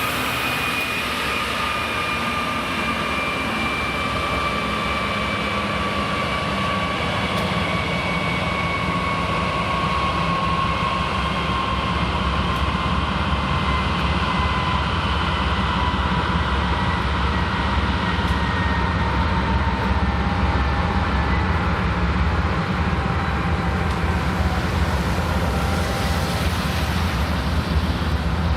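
BNSF diesel freight train running past the tracks. A whine slowly falls in pitch throughout, and a deep diesel engine rumble grows louder in the second half.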